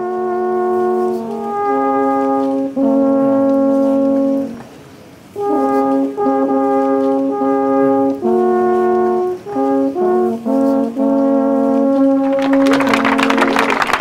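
A brass horn plays a slow melody of long held notes, with a short pause partway through. Clapping and crowd applause swell up near the end.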